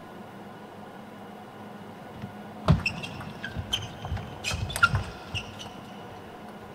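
Table tennis rally: the ball clicking off rackets and the table in a quick exchange of about a dozen hits over some three seconds, with shoes squeaking on the court floor.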